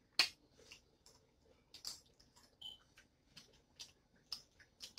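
Seafood-boil eating sounds: irregular sharp clicks and smacks of chewing and of shellfish being picked apart by hand, the loudest just after the start. A short high squeak sounds about halfway through.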